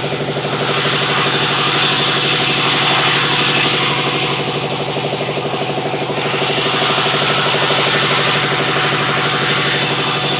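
Sawmill running: a steady engine drone with a hiss over it. The hiss drops away for a couple of seconds near the middle, then comes back.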